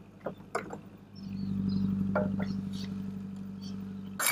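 An engine running steadily starts about a second in, a low hum that is the loudest sound. Over it come a few light metal clicks as a wrench turns the centre bolt of a three-jaw gear puller on a steering wheel hub, and a sharp metallic clatter right at the end.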